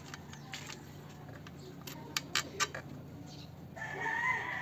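A few short sharp clicks around two seconds in, then a rooster crows near the end, one long call.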